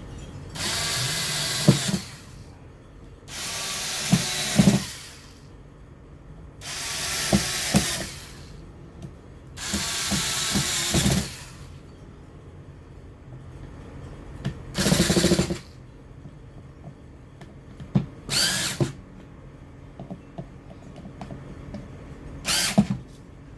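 Cordless power drill/driver driving in the small bolts of a beadlock ring on an RC car wheel, in seven short runs. The first runs last a second or more and the last ones are brief, as the bolts seat. Several runs end in a sharp click.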